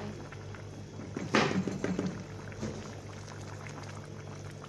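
A thick meat stew bubbling in a pan as a wooden spatula stirs it, with a sharp sound of the spatula against the pan about a second and a half in, over a steady low hum.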